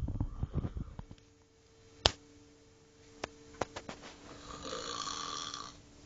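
A person snoring: a rough, crackling snore in the first second, a few sharp clicks of the mouth or throat, then one long breathy snore near the end. A faint steady hum runs underneath.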